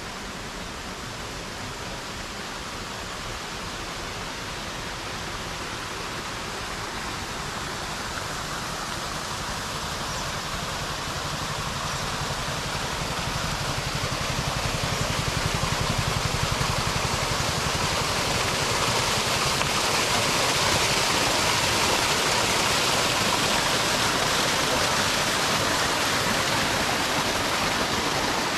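Rushing water from a small roadside waterfall and the stream it feeds: a steady splashing hiss that swells over several seconds around the middle and then holds.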